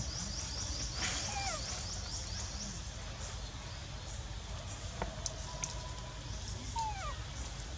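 Outdoor animal calls over a steady low rumble: a quick run of short, high chirps in the first few seconds, then a few short falling whistle-like calls about a second in and again near the end.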